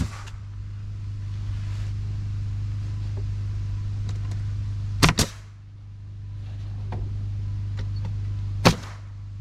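A steady low motor hum with loud, sharp impacts: one at the start, a quick double about five seconds in, and one near the end, as siding boards are fastened.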